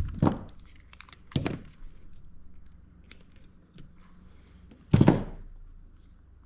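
Handling noise on a workbench: soldering tools and parts being picked up and set down, with three thunks (the loudest about five seconds in) and light clicks and rustling between them.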